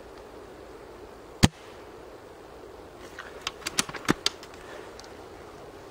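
Shot from a spring-powered Silverback SRS A2 airsoft sniper rifle: one sharp crack about a second and a half in, followed about two seconds later by a quick run of lighter clicks.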